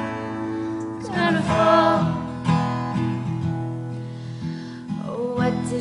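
Folk song accompaniment: steel-string acoustic guitar strummed steadily, with a melodic line gliding over it about a second in and again near the end.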